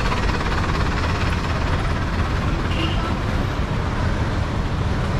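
Street traffic: a steady rumble of passing and idling vehicles.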